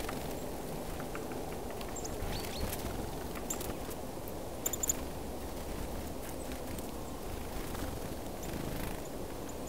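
Scattered thin, high call notes of small songbirds, a few of them falling in pitch, over a steady low outdoor rumble. A few sharp clicks come close together about five seconds in.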